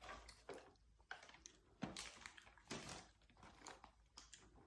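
Near silence with faint, scattered clicks and rustles of gift packaging being handled.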